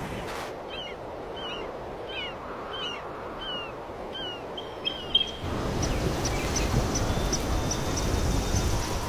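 A bird calling over and over, each note a short downward chirp, about three notes every two seconds. A little past halfway a steady low rushing noise takes over, with faint quick high ticks above it.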